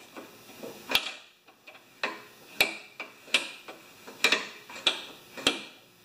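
Sharp metallic clicks and taps, about seven spaced irregularly, as pliers work on the lawnmower's steel rear axle bracket.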